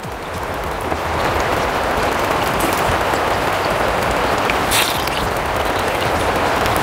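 Sliced ripe plantains frying in hot oil in a pan: a steady sizzle, with a short louder spatter about five seconds in.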